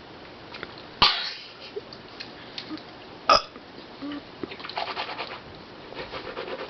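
A person burping after drinking soda: two short, loud burps, about one second and three seconds in, followed by fainter crackly noises.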